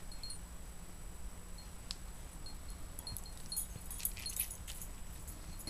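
Faint metal jingling of dog collar tags as two dogs wrestle, with a cluster of jingles a little past halfway. Under it runs a low steady hum, with faint short high chirps now and then.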